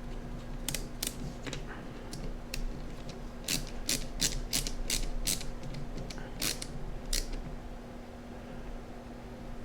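Small screwdriver turning tiny screws into the plastic case of a Sharp Zaurus SL-6000D handheld: a run of short, sharp clicks, quickest about three and a half to five and a half seconds in at around three a second.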